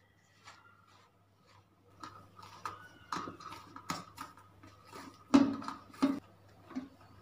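Hand mixing flour and water into dough in a stainless steel bowl: irregular scraping, squishing and knocking against the bowl. It is faint at first, then louder from about two seconds in, with the two strongest knocks a little after five and six seconds.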